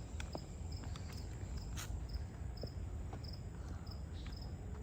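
An insect, cricket-like, chirping in short, evenly spaced pulses, about two a second, over a low outdoor rumble.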